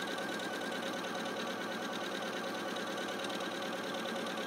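Janome Skyline S7 computerized sewing machine sewing a seam at fast speed: a steady motor whine under the rapid, even chatter of the needle stitching.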